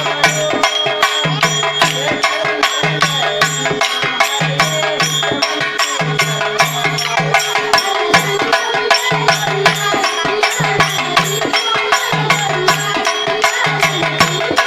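Tamil folk music for kolattam, the stick dance: wooden sticks clacking in a quick, even rhythm over a pulsing drum and melody.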